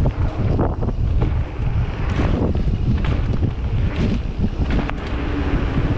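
Wind rushing over an action camera's microphone while riding a mountain bike fast down a dirt trail, over a steady low rumble of knobby tyres rolling on packed dirt. Scattered short clicks and rattles come from the bike over the bumps.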